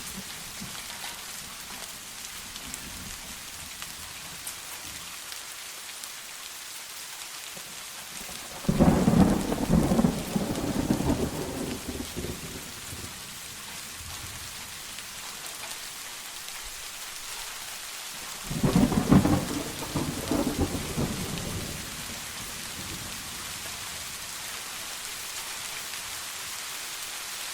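Steady rain falling, with two claps of thunder that start suddenly and rumble on for about three seconds each, the first about nine seconds in and the second about ten seconds later.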